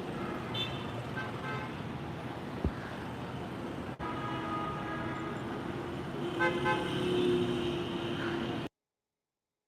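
Street traffic noise with vehicle horns tooting several times; the sound cuts off abruptly near the end.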